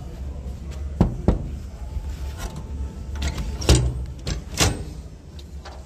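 A few sharp knocks and clicks from handling a Highway Products metal truck toolbox: two close together about a second in, and louder ones in the middle. They sit over a steady low background hum.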